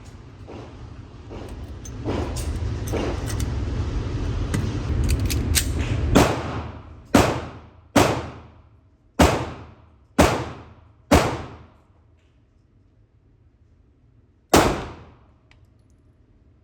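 Gunshots in an indoor shooting range: six sharp shots about a second apart, then a seventh after a pause of about three seconds, each ringing out with a short echo. Before them is a loud low rumble with a few fainter cracks.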